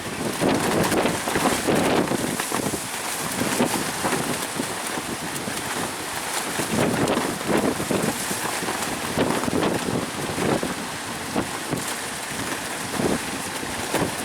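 Strong coastal wind buffeting the microphone in uneven gusts, over the steady rush of high surf.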